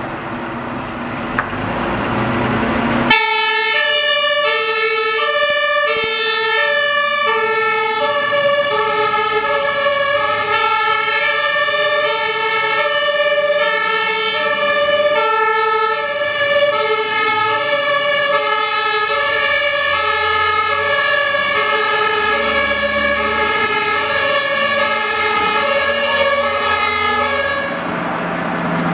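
German fire engines' two-tone sirens, switching back and forth between a high and a low note, with two sirens sounding at once out of step, over diesel truck engines. About three seconds in the sirens start abruptly, and they stop near the end.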